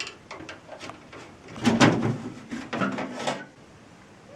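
Handling noise: a sharp click and a few small ticks, then a scraping, rattling stretch lasting just under two seconds, like a panel or casing being moved.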